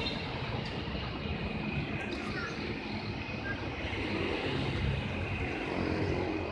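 Scania K410iB coach's diesel engine idling steadily with a low rumble.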